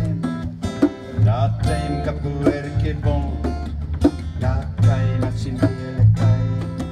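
Acoustic guitar and upright double bass playing an instrumental passage, the guitar plucking notes over a steady bass line.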